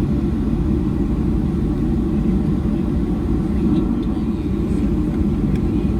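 Steady low cabin rumble inside a Boeing 737-700 taxiing after landing, its CFM56-7B engines near idle.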